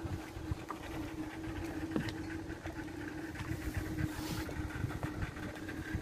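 An engine idling steadily, with a constant hum.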